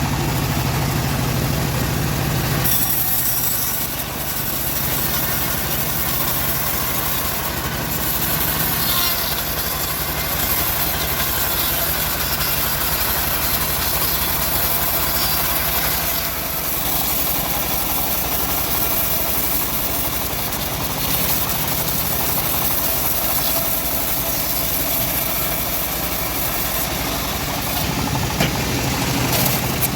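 Engine-driven homemade bandsaw mill running steadily. About three seconds in its sound changes, with more hiss and a weaker low drone, as the blade works through a log, and it eases back to the plain engine drone near the end.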